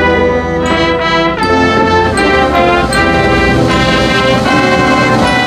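Naval brass band playing, with held chords of trumpets and lower brass changing about every half second.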